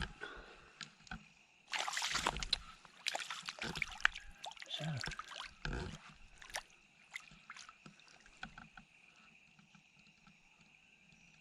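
Water sloshing and splashing with scattered knocks, busiest in the first half and then settling, over a steady high-pitched hum.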